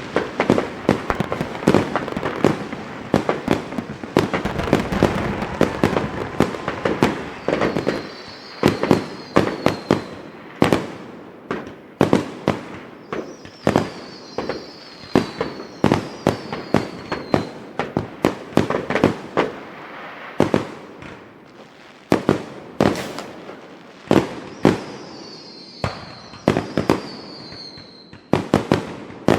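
Fireworks going off: a dense barrage of bangs and pops for the first several seconds, then separate bangs with echoing tails. A few high whistling tones fall in pitch among them.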